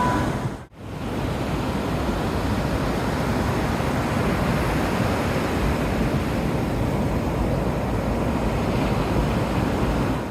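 Sea surf washing steadily onto the beach, with wind on the microphone. A brief dropout comes under a second in.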